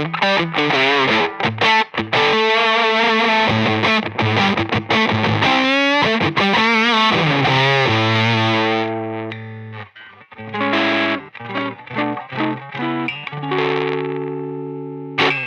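Electric guitar played through a silicon one-knob fuzz pedal into a tube amp: bright, heavily fuzzed riffs with bent notes. About nine seconds in the tone turns darker and cleaner, with held chords, as the guitar's own controls are rolled back.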